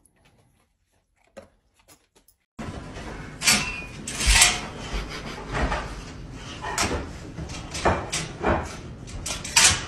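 Metal wire crate door and its slide-bolt latch rattling and clicking, with repeated knocks, as a pet mouths and licks at the latch from inside. The rattling starts about two and a half seconds in, after near silence.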